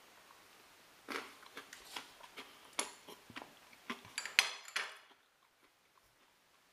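Crunchy snack mix, dry coated green peas and sticks, being chewed: irregular sharp crunches over a few seconds.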